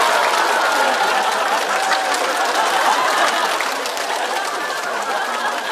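Studio audience applauding and laughing, the clapping easing off a little toward the end.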